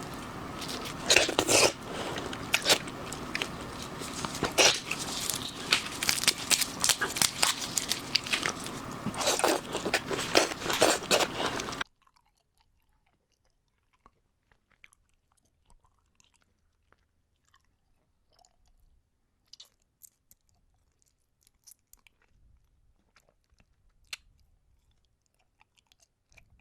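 Close-miked chewing and biting of seafood, crisp crunches and wet crackles coming thick and loud for about twelve seconds. Then the sound cuts off suddenly to near silence, with only a few faint clicks.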